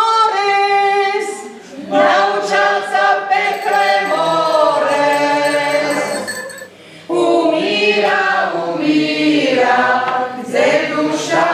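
A small mixed group of amateur singers singing a slow mock funeral lament together, led by a woman on a microphone, in three long sung phrases with two short pauses for breath.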